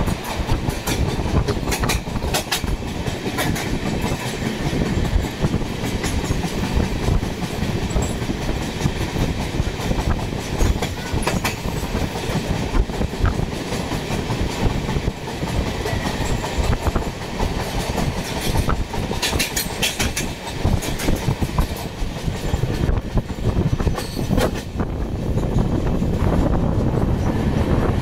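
Passenger train running on the rails: a steady low rumble, with the wheels clicking and clattering over rail joints.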